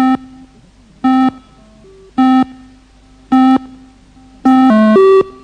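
Electronic countdown beeps of a beep-test audio track: four short pitched beeps about a second apart, then a longer final tone whose pitch dips and then steps up near the end. The sequence counts down to the start of the first level.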